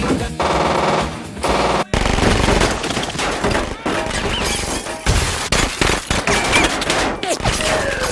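Film-soundtrack gunfire: rapid automatic bursts from a MAC-10 submachine gun, dense shots and impacts. They begin with a hard cut about two seconds in, after a sustained tone.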